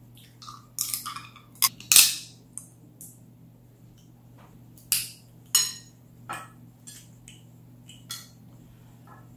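Cooked crawfish shell being cracked and peeled by hand: a cluster of sharp crackling snaps about a second in, then single snaps every second or so, over a faint steady hum.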